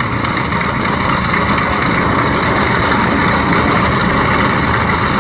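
Focke-Wulf 190's radial engine running steadily on the ground during a run-up after repair work for a technical fault.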